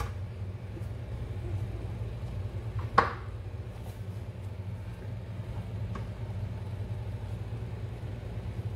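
Hands stretching pizza dough on a wooden board over a steady low hum, with one sharp knock about three seconds in.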